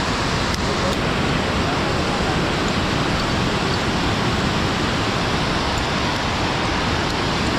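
Steady rushing of river cascades and small waterfalls tumbling over travertine ledges below, an even, unbroken roar of white water.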